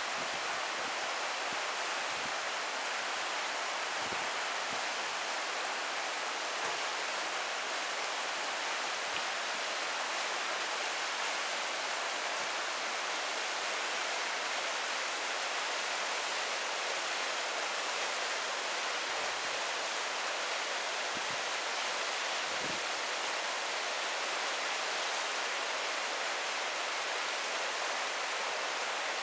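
Shallow river running over a bed of stones and rocks: a steady, unbroken rush of water.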